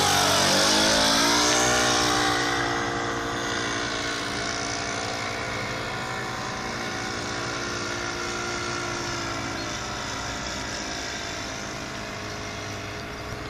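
Engine of a yellow Cub-style radio-controlled model plane making a low pass. It is loudest at the start and drops in pitch as the plane goes by, then drones on steadily and slowly fades as the plane climbs away.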